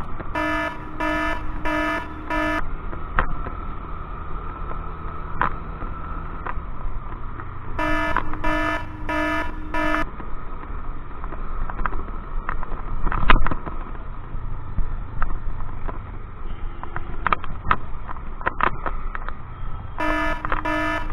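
Electronic beeper sounding in sets of four quick, evenly spaced beeps, three times, over the steady rumble and wind noise of a moving scooter.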